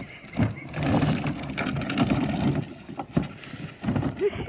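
A dog pawing and nosing at a toy car, with irregular knocks, clatter and scraping as the toy is pushed and rolled about.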